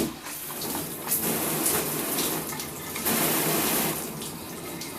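Water spraying from an old handheld shower head, a steady rush whose strength steps up and down a few times as the spray changes. Water pressure is kind of low.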